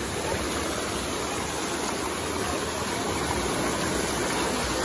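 Creek water rushing steadily down a sandstone slide chute and over a small cascade.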